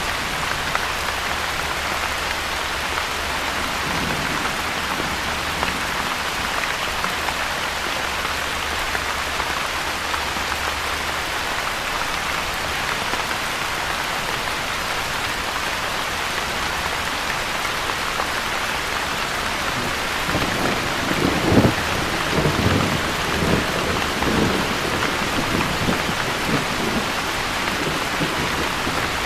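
Steady rain falling, with a low rumble of thunder rolling through about two-thirds of the way in.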